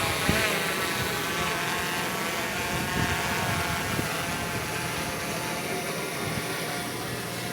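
A steady machine hum with several wavering tones over a bed of noise, broken by a few soft thumps.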